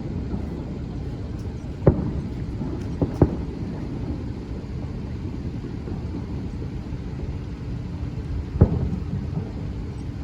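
Fireworks shells bursting: a bang about two seconds in, two in quick succession around three seconds, and another near the end, over a steady low rumble.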